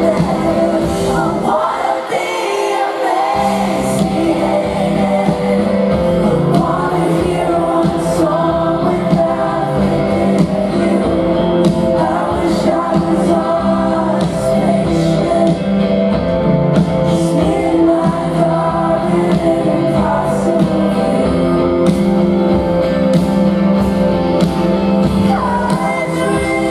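Live indie rock band playing a song, with a woman singing lead over electric guitar and full band, as heard from the audience. The low end drops out briefly about two seconds in, then the full band returns.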